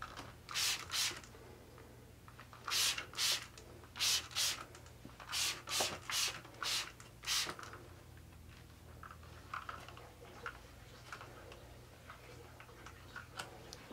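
Trigger spray bottle misting homemade wrinkle-release spray onto a hanging shirt: about a dozen quick hissing sprays, mostly in pairs, over the first seven seconds or so, then only faint small ticks of handling.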